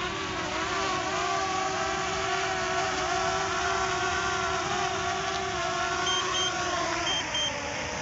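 DJI Spark's propellers whining steadily as the small drone hovers and lowers itself close by, the whine dropping away near the end as it sets down. Short high beeps of the low-battery warning sound twice near the end.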